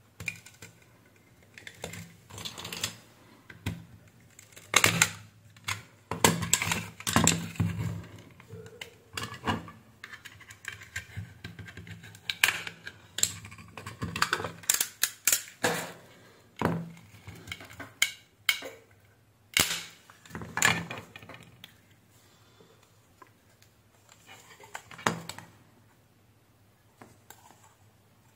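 Irregular plastic clicks, snaps and scrapes as the snap-fit plastic case of a Tiger T1+ Lazer mini satellite receiver is pried open with a tool, its press-fit clips letting go one after another. The clicking is busiest in the first two-thirds and dies away near the end.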